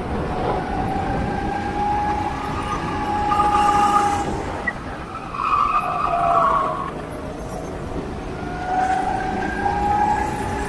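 Go-kart engine running at racing speed, its whine rising and falling in pitch, with two louder stretches about four and six seconds in.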